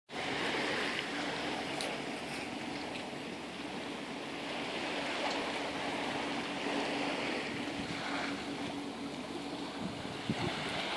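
Shallow lagoon water lapping at a sandy shore, an even wash of noise, with a steady low hum underneath.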